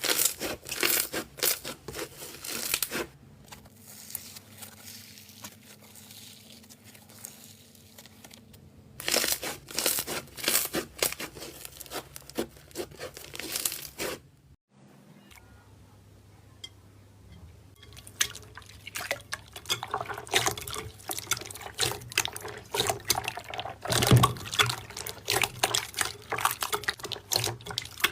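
Slime being squeezed and pressed by hand, giving stretches of fast crackling, popping clicks and wet squishing, broken by quieter stretches.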